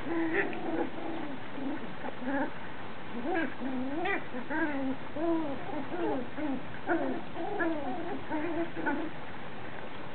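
Seven-week-old puppies whining and yelping in play: a string of short high calls that rise and fall, coming one after another at an uneven pace, then stopping near the end.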